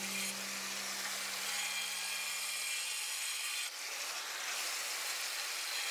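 Angle grinder grinding down the edge of a ceramic kamado heat-deflector (reflector) stone, a steady gritty hiss with a short break a little under four seconds in.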